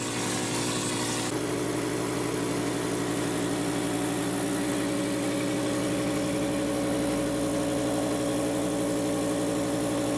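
Graco 1500 texture sprayer running steadily, a continuous machine hum with an even hiss of air and material from the spray gun. The pump is being primed: soapy water is sprayed out until the StyroCrete reaches the gun nozzle.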